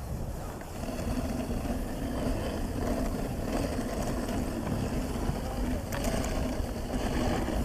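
Dog sled moving along a packed snow trail: a steady rumble of wind on the microphone with the hiss of the runners over the snow, growing a little louder about a second in.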